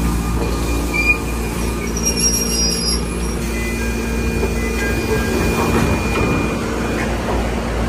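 Jōmō Electric Railway stainless-steel electric commuter train pulling in and stopping at a platform, with a steady rumble and thin, steady squealing tones from the wheels and brakes.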